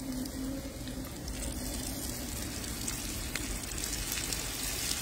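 Floured chicken pieces frying in olive oil in a wide pan over medium heat, freshly dropped in: a steady sizzle with scattered faint pops and crackles.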